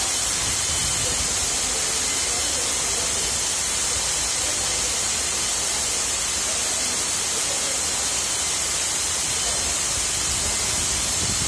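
Medium-velocity water spray system discharging through its open-head nozzles, fed through an open deluge valve under hydrotest: a steady, even hiss of spraying water.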